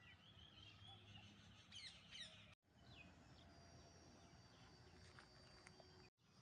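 Faint birdsong outdoors: several birds chirping with short, quick, sweeping notes over a steady low background hum. A thin, steady high note joins after about three seconds, and the sound cuts out completely twice, briefly.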